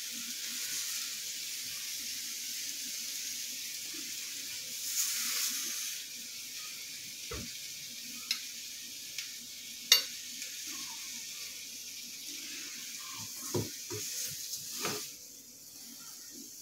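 Caramelised pineapple pieces sizzling in a frying pan as it cools after the heat is switched off, with a few sharp clicks of a metal palette knife against the pan and plate. The sizzle dies down near the end.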